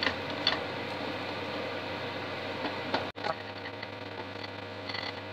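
Pancake batter frying in a frying pan on a gas hob: a steady sizzle, with a couple of light clicks of a spatula against the pan near the start.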